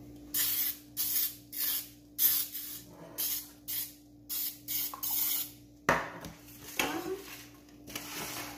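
Aerosol can of non-stick baking spray hissing in quick short spurts, several a second, as it coats a round cake pan. A single knock about six seconds in breaks the spraying, which then resumes in longer spurts.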